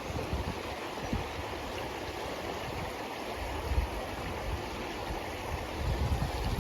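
Steady rushing of flowing river water, with a few short low thumps.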